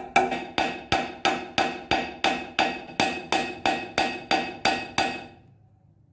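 Hammer peening over a steel rivet that fastens a flat steel strip to a pipe wrench handle. There are about three ringing metallic strikes a second, stopping about five seconds in.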